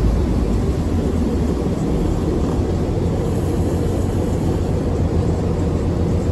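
CityCat catamaran ferry's diesel engines running, a steady low drone with a deep hum heard from the open rear deck.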